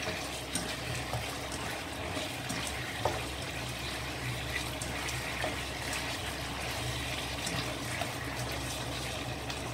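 Sweet-and-sour sauce bubbling and sizzling steadily in a wok over medium-high heat as it reduces around chicken wings, with a spatula stirring them and lightly tapping the pan a few times.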